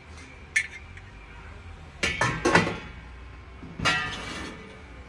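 Brass kitchen vessels clinking and knocking against each other as they are handled and set down. A light clink about half a second in, a cluster of metal knocks around two seconds in, and another clink with a short ring near four seconds.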